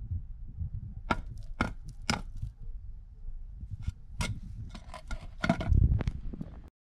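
Metal engine parts and tools clinking and knocking as a motorcycle engine is taken apart: a string of sharp clicks with a brief metallic ring, in one cluster about a second in and another from about four seconds, cutting off abruptly near the end.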